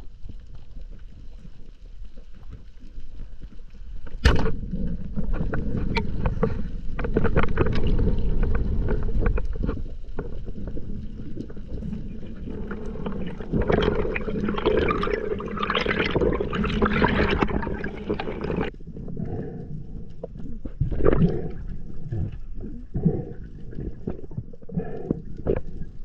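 Underwater rumble and water noise from a diver's camera, with a single sharp snap about four seconds in, typical of a band-powered speargun firing. A dense crackling, hissing stretch follows later and cuts off suddenly, then scattered knocks and bubbling.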